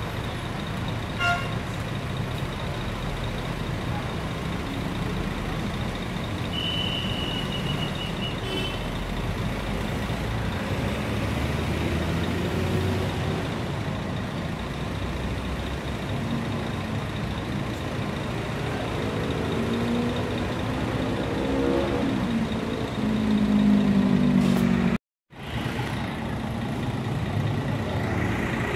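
Large intercity bus engines running and moving off, a steady low rumble with a brief high-pitched tone about seven seconds in. Near the end an engine revs up, getting louder and rising in pitch, and then the sound drops out for a moment.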